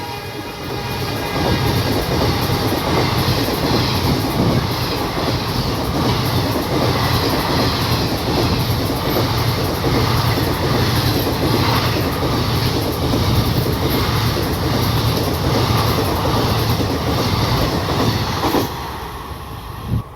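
Indian Railways express train passing at speed, about 110 km/h, its coaches rushing by with the wheels clattering over rail joints in a steady, even rhythm. The noise drops away suddenly near the end as the last coach clears.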